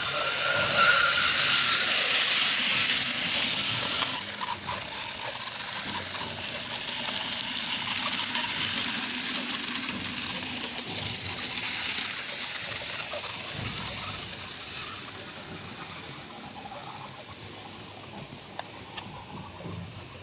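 N-gauge model of a 103-series electric train running along its track, a steady rattling hiss of wheels and small motor. It swells as the train passes close and fades over the last several seconds as it runs away.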